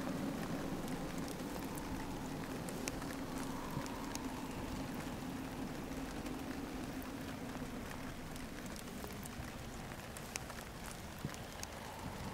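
Steady rain falling, with individual drops ticking sharply close by. A faint low steady hum sits underneath.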